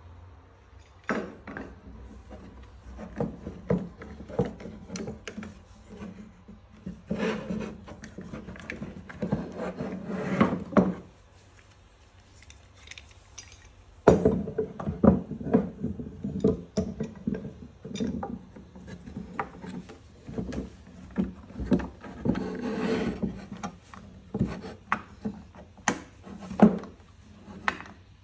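Piher Maxipress M sliding bar clamps being fitted and tightened on wooden blocks: the jaws scrape and click along the steel bars, and the clamps and blocks knock against the wooden bench. It comes as a run of clicks and knocks with stretches of scraping, and a short pause about halfway through.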